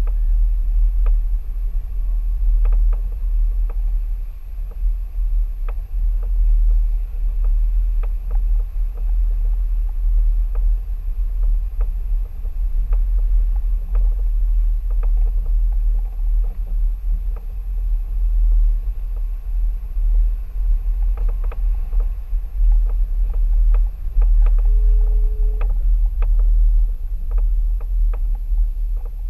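Mercedes-Benz ML350 BlueTec SUV rolling slowly over a dirt and gravel track: a steady low rumble, picked up by a microphone outside on the vehicle, with scattered clicks of stones under the tyres. A brief steady tone sounds for about a second near the end.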